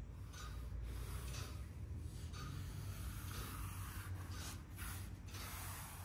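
A hand rubbing across a carved linoleum block on paper: soft swishing strokes, about one a second, over a faint low steady hum.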